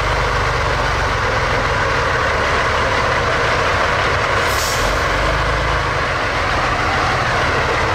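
Diesel engine of a heavy eight-wheeled military truck running steadily as the truck drives slowly past.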